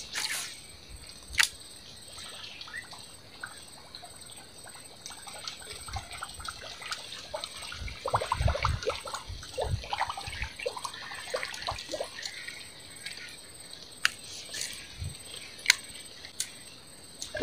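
Small water splashes, drips and trickling as a fishing lure is worked across still swamp water, busiest in the middle, with a few sharp clicks.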